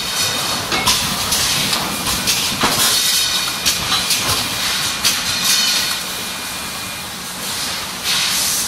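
HM 4000S servo cross-web labelling machine running on a packaging line: repeated short bursts of hiss and sharp clicks over a steady machine hum, with a faint steady whine through the middle.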